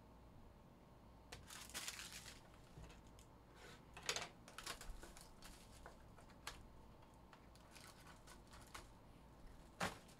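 Plastic shrink-wrap being torn and crinkled off a sealed trading-card box, in faint scattered crackles, with a sharp tap near the end.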